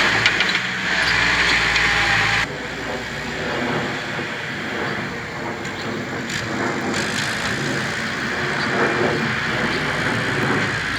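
Engine of earthmoving machinery running steadily. The sound changes abruptly about two and a half seconds in, the hiss above it dropping away.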